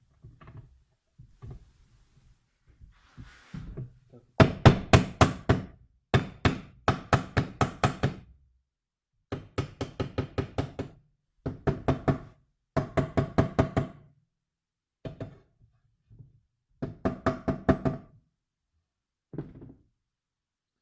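Rapid sharp knocks in bursts of five to ten strikes, about five a second, starting about four seconds in, with a few single knocks between bursts; light clicks and handling sounds before the first burst.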